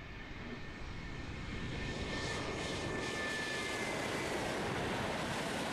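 Tu-22M3 bomber's two NK-25 jet engines running as the aircraft rolls along the runway, growing louder over the first two seconds and then holding steady, with a faint high whine that slowly falls in pitch.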